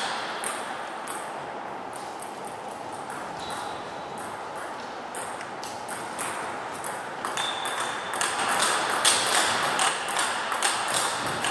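Table tennis ball clicking against bats and table: scattered sharp ticks at first, then a quick run of louder ticks from about eight seconds in as a rally is played.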